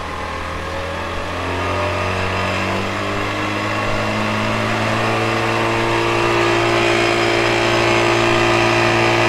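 Home-built 48-volt electric motor on a converted 35 hp Evinrude outboard spinning up out of gear. Its motor hum rises slowly in pitch and grows steadily louder as the current is turned up.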